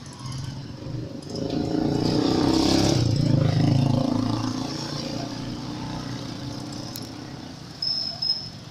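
A motor vehicle driving past: its engine swells over a couple of seconds, peaks, then fades away. Near the end come two short high chirps.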